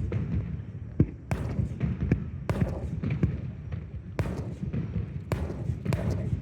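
Fireworks exploding overhead: a rapid, irregular series of sharp bangs and crackles, more than a dozen in all, over a steady low rumble.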